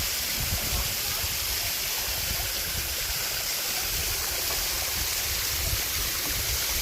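Steady rush of falling and flowing water at the Kremiotis waterfall.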